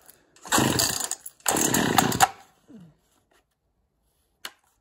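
Husqvarna 50 chainsaw's two-stroke engine being pull-started: two short bursts, each a little under a second, that die away rather than settle into running. One sharp click near the end.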